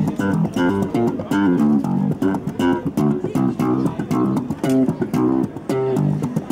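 Live music on plucked string instruments: a quick run of picked guitar notes over a bass line.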